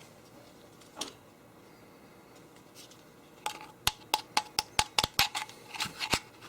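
A single sharp click, then a quick run of sharp metallic clicks with a slight ring, about four a second, starting a little past halfway.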